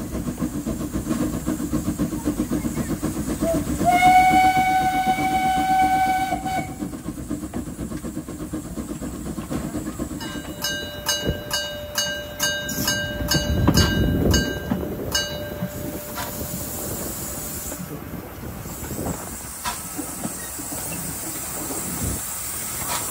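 Steam train running, with a flat steam-whistle blast of about three seconds starting about four seconds in. Later a bell rings about twice a second for some five seconds over a low rumble.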